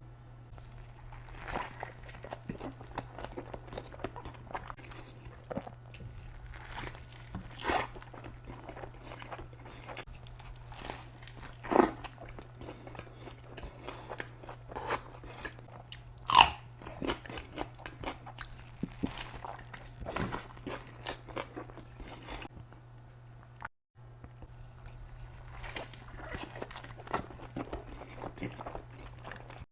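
Close-miked eating: irregular crunchy bites and chewing, a few bites louder than the rest, over a steady low hum. The sound drops out for a moment about three-quarters of the way through.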